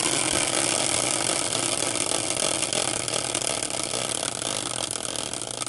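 Caster wheel spinning freely in its metal bracket: a steady whirring rush that starts abruptly with the hand spin and slowly fades as the wheel loses speed.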